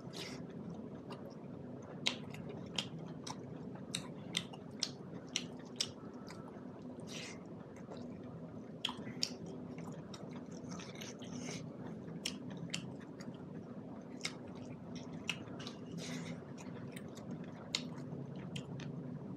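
Close-up chewing of a hand-fed mouthful of rice and buffalo meat, with frequent short, sharp wet clicks and smacks of the lips and mouth at an irregular pace. A low steady hum runs underneath.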